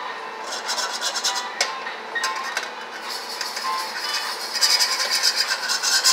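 Fork scraping and stirring in a metal baking pan, a fast rasping scrape of the tines across the pan bottom that gets louder over the last second or two, dissolving jello powder into water.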